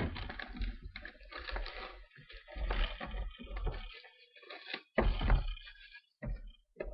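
Plastic shrink wrap being torn and crinkled off a sealed cardboard box of trading cards, in irregular rustling bursts with some dull bumps of the box being handled.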